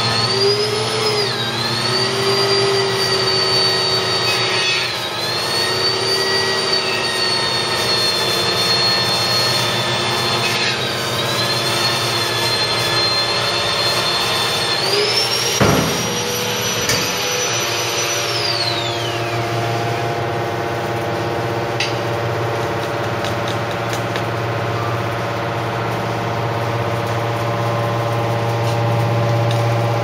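Enerpat AMB T250 hydraulic metal baler compressing mattress springs: its hydraulic power unit hums steadily under load, with a high whine that dips several times and then falls away about two-thirds of the way through. A single sharp clunk about halfway through.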